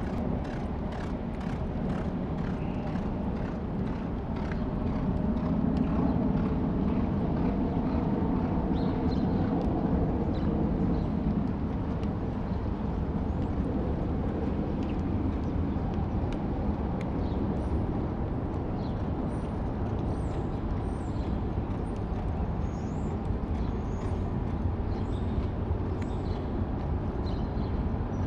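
Steady outdoor background rumble that swells a few seconds in and eases back, with faint high chirps scattered through the second half.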